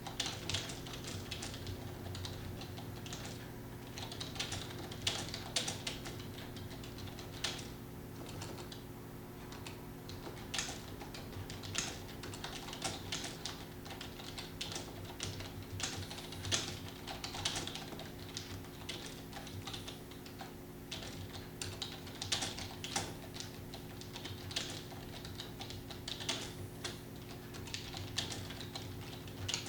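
Fast, uneven typing on a computer keyboard, keys clicking several times a second with brief pauses, over a steady low hum.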